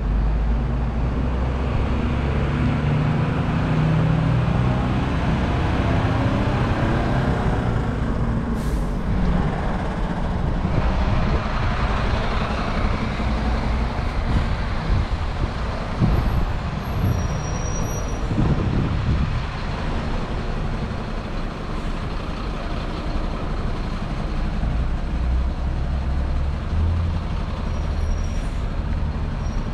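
Street traffic: motor vehicle engines running and passing, with a deep engine rumble that is heaviest in the first few seconds and again near the end. A few short high beeps sound in the middle and near the end.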